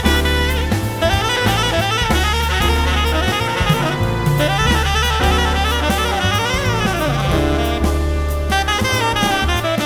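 Background jazz music with saxophone over drum kit and bass.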